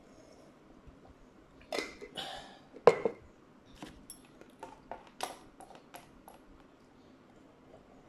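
Handling a paper instant-noodle cup: rustling of the cup and its peeled-back paper lid, with a few knocks and one sharp click about three seconds in. After that comes a run of light ticks and clinks as the utensils in the cup knock against it.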